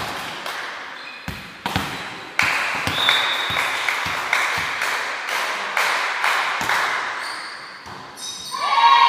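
Volleyball rally in a gymnasium: repeated sharp thuds of the ball being struck, ringing in the large hall, with voices rising near the end.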